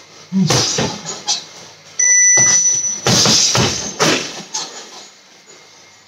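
A short electronic beep from a reaction timer, answered at once by a quick combination of four hard strikes on a heavy bag: punches and a kick. A few more bag strikes land in the first second.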